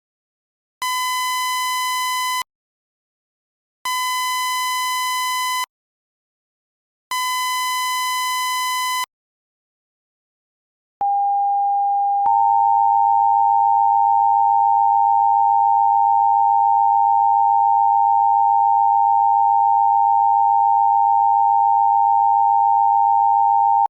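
Emergency Alert System tones. Three harsh, buzzy beeps of about two seconds each, a second apart, stand in for the alert's data header. Then a steady tone starts and, about a second later, becomes the loud, continuous two-tone attention signal that comes before the spoken alert.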